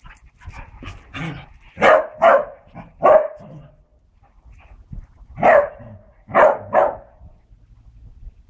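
Beagles barking while playing together: a few small yaps, then a burst of three loud barks about two seconds in and another three about five and a half seconds in.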